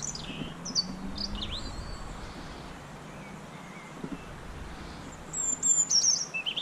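Small songbird singing: high, thin chirps and trills, a few notes at the start and a louder burst about five seconds in.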